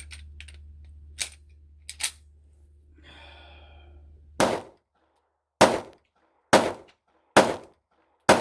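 Two light mechanical clicks of gun handling, then five gunshots from a semi-automatic firearm, fired one about every second.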